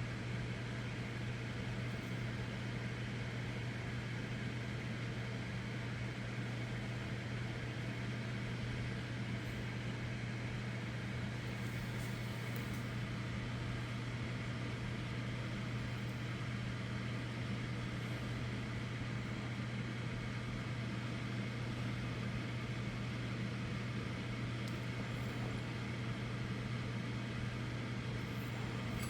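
Zline microwave oven running with a steady low hum, though it is giving no heat.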